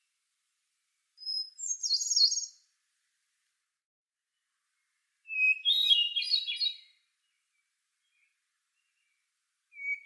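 Hermit thrush singing: two phrases a few seconds apart, each a clear held note followed by a quick run of fluttering higher notes, the second pitched lower than the first. A third phrase, lower still, begins near the end.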